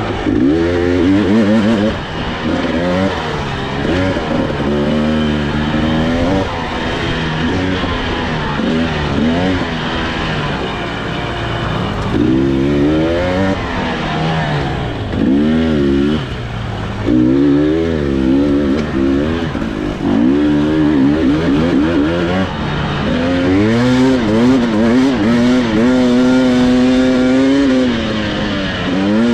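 Husqvarna TE300i two-stroke single-cylinder dirt bike engine under riding load, the revs rising and falling every second or two with the throttle, then held high and fairly steady for a few seconds near the end before dropping off.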